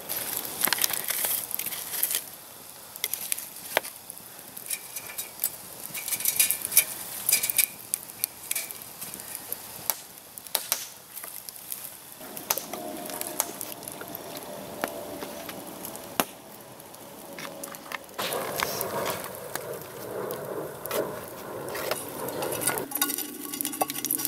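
Wood campfire crackling, with sharp pops scattered throughout, and wood knocking as the burning logs are shifted with a stick.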